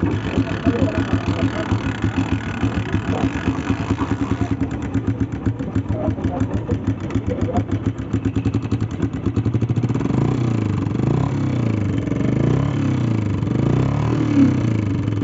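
Honda CG125's single-cylinder pushrod four-stroke engine idling with a fast, even beat and a top-end noise, which the mechanic traces to a worn-through push rod.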